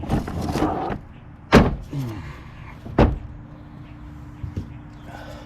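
Car battery being slid out of its tray and handled: a scraping slide, then two sharp clunks about a second and a half apart.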